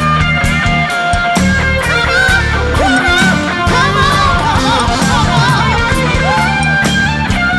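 A live R&B band plays a slow song, with an electric guitar playing lead lines that bend and waver in pitch over a steady bass and regular cymbal hits.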